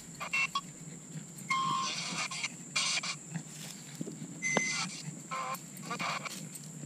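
Ghost-box (spirit box) app on a tablet playing short, irregular bursts of chopped-up sound fragments through its small speaker, used to listen for spirit voices.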